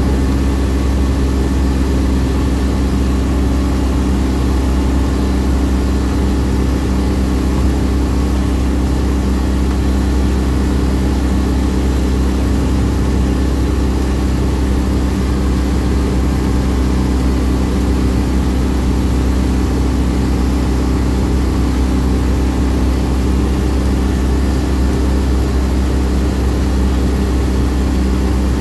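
Vehicle driving on a gravel road, heard from inside the cabin: a steady low drone of engine and tyre noise.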